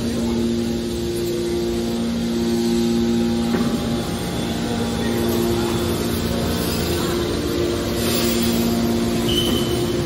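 Hydraulic scrap metal baler's electric-motor pump unit running: a steady mechanical hum with a constant whine that drops out briefly and comes back a few times.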